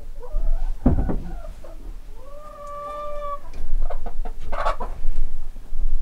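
Laying hens clucking, with one long drawn-out call in the middle that rises, holds and falls. A knock comes about a second in, and louder scuffling noise fills the second half.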